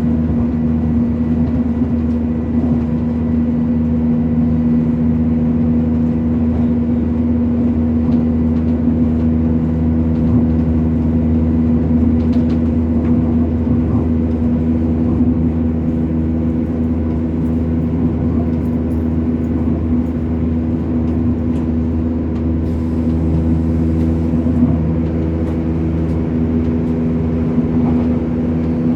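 Train's diesel engine running at a steady pitch with the rumble of wheels on the track, heard from on board a moving train. The drone holds level throughout.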